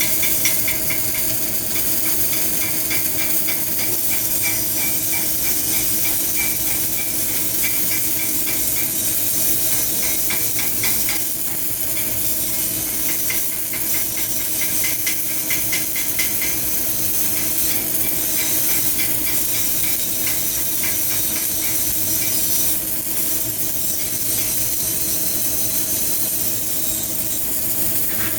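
CO2 MIG welding arc on solid wire, crackling and sizzling steadily through a long continuous bead, with a steady hum underneath.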